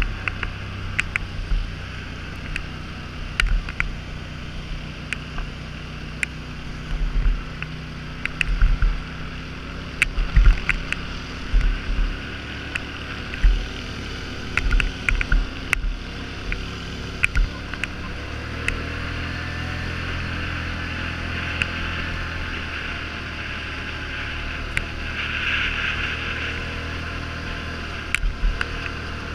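Polaris Sportsman 850 ATV's twin-cylinder engine running steadily while riding a rocky gravel trail, with wind noise and frequent sharp knocks and rattles as it bumps over the stones. The engine note shifts a little over halfway through.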